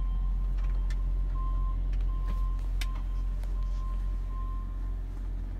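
Semi-truck diesel engine idling with a steady low hum, heard from inside the cab. A faint high-pitched tone, the kind a backup alarm makes, pulses in and out and stops about five seconds in, and a few light clicks are heard.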